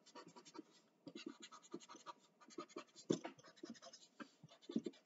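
Pencil-top eraser rubbing over paper, a faint scratching of quick, irregular back-and-forth strokes as leftover pencil lines are erased.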